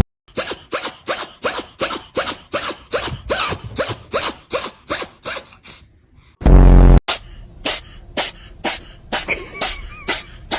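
A steady rhythm of short, sharp percussive sounds, about three a second. It is cut about six and a half seconds in by a loud half-second buzzing tone, and then the rhythm carries on.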